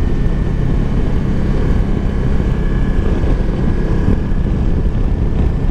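Honda CRF250L Rally's single-cylinder engine running steadily at road speed, under a steady rush of wind.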